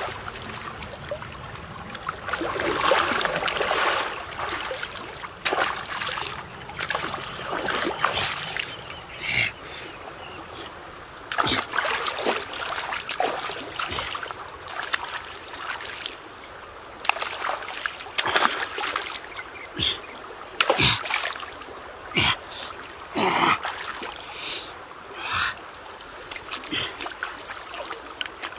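River water splashing and dripping as hands sweep and dig through the shallows, in irregular separate splashes, with trickles as shellfish are lifted out of the water.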